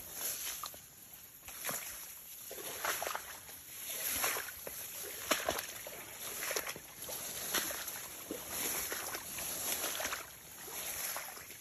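Footsteps wading through shallow swamp water, each stride a sloshing splash, about one a second.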